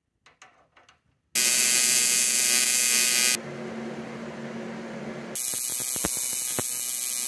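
AC TIG welding arc buzzing as a drain fitting is welded onto an aluminium radiator tank. A few light clicks come first, then the arc starts about a second and a half in, quieter for a couple of seconds in the middle and loud again near the end.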